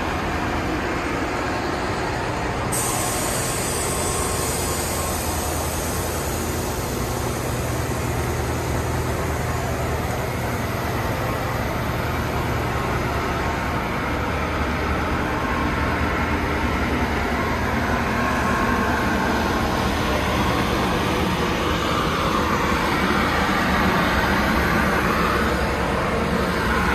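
Two Siemens Charger diesel locomotives running while the train stands at the platform: a steady low engine rumble and hum. A high hiss comes in suddenly about three seconds in and continues, and the rumble grows somewhat louder near the end.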